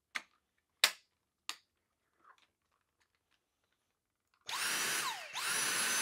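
Three sharp plastic clicks from the battery clip being handled, then a Dyson V6 cordless vacuum cleaner's motor is run twice in quick succession by its trigger, with a steady high whine at speed and a falling pitch as it winds down after each release.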